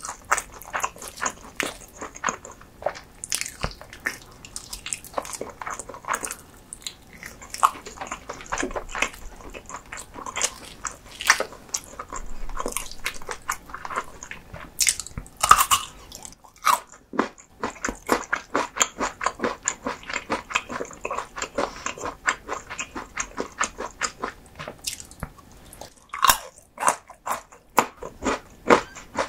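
Close-miked eating: sticky, wet chewing and biting of gelatinous spicy pork tail and beef bone marrow, a steady stream of quick smacks and clicks with a few louder bites.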